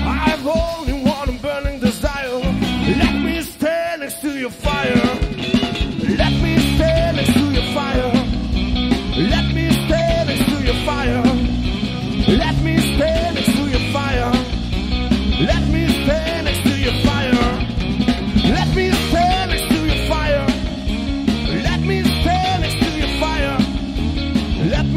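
Live rock band playing: a male voice singing over electric guitars, bass guitar and a drum kit. The band drops back briefly about three to four seconds in, then the full beat comes in again.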